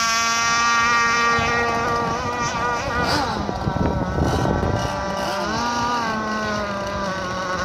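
Zenoah 26cc two-stroke petrol engine of a radio-controlled boat running at high revs, its pitch sagging slightly. About three seconds in it goes rough for a couple of seconds, the pitch wavering, then the revs briefly rise and fall near six seconds.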